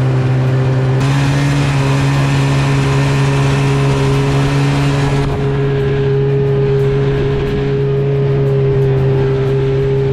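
Snowmobile engine running at high, steady revs while towing, its pitch held nearly constant throughout.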